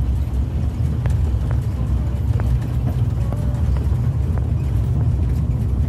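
Steady low rumble of a zoo visitor road train heard from aboard as it drives along a paved road, with a few faint clicks over it.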